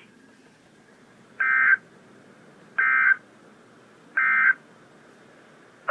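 Emergency Alert System end-of-message tones: three short bursts of warbling SAME digital data, each about a third of a second, about 1.4 seconds apart, signalling that the alert message is over.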